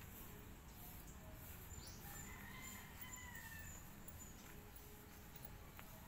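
A faint rooster crowing once, about two seconds in, one call of roughly a second and a half that drops in pitch at the end, over a low steady rumble.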